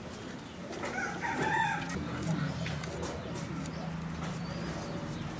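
A chicken calling once in the background, a drawn-out call about a second in that lasts about a second, with a few faint small clicks around it.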